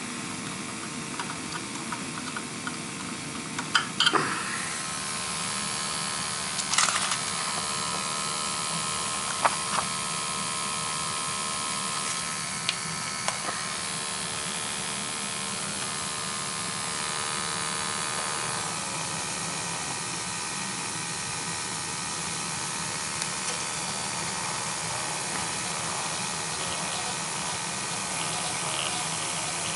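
Newly installed gas boiler running: a steady burner hiss with a faint hum underneath. A few sharp clicks stand out in the first ten seconds.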